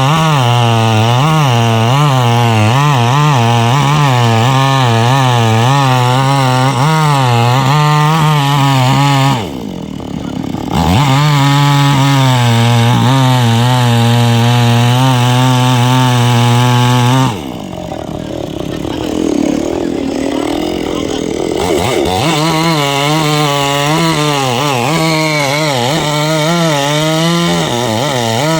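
Chainsaw running at high speed, its engine note rising and falling unsteadily as it cuts through tree wood. The engine note drops away briefly twice, about a third and two thirds of the way through, before picking up again.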